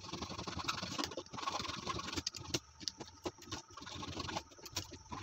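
Sandpaper being rubbed back and forth between the copper contact strips of a star-delta starter's contactor, scratching with irregular small clicks and rattles from the contactor parts. The rubbing scours off carbon left by arcing, the cause of contacts that keep sticking.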